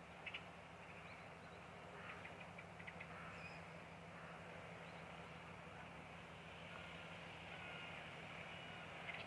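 Faint steady low hum of a large landing ship under way, over even outdoor background noise, with a few faint short chirps scattered through.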